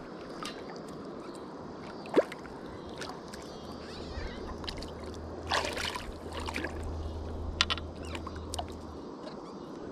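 Water splashing and sloshing over a steady wash of water noise, with a cluster of sharper splashes about five and a half seconds in; a low hum runs from about four to nine seconds in.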